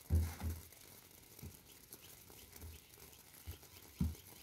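Hand patting and pressing corn tortillas on a metal comal: a few soft, dull thumps, the loudest just after the start, with faint quick high ticks in between.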